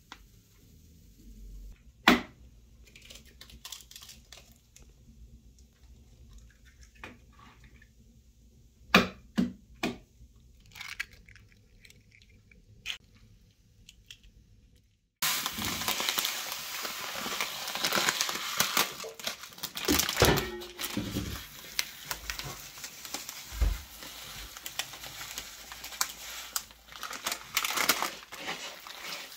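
A quiet stretch with a few sharp clicks and knocks, then, starting abruptly about halfway, a steady wet squishing as hands knead raw minced pork with eggs, spices and bread into sausage filling.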